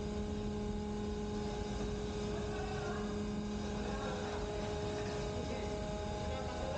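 Steady machinery drone of a ship's hydraulic steering gear with its pump units running, carrying a hum of a few held tones.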